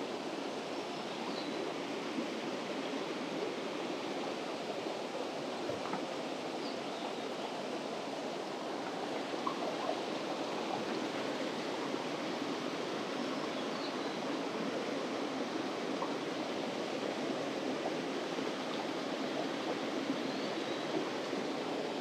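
Mountain stream water rushing steadily over rocks.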